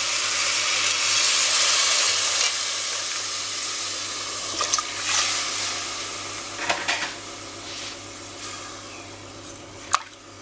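Water poured into a caldero of rice fried in hot oil sizzles and hisses, loudest in the first two seconds, then slowly dies down. A metal spoon stirs the rice and clinks against the pot a few times.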